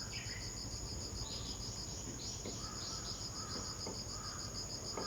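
Insects chirping: a steady high trill with a rapid, evenly pulsed chirp at about eight or nine pulses a second.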